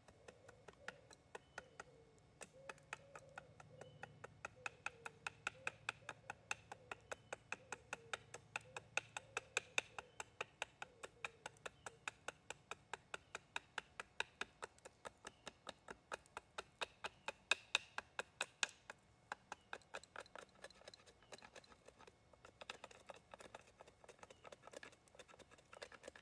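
A carbon-steel bushcraft knife carving a wooden spoon blank: a long, even run of small, sharp cuts, about three to four a second. Near the end the cuts come slower and more irregularly.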